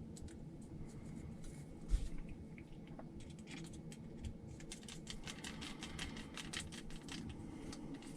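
Small screws and parts being handled and fastened by hand: light clicking, tapping and scratching, with one knock about two seconds in and a quick run of small ticks through the second half.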